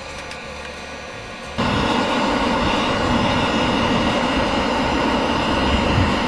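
Quieter background sound, then an abrupt cut about a second and a half in to a loud, steady rushing noise with a faint high whine.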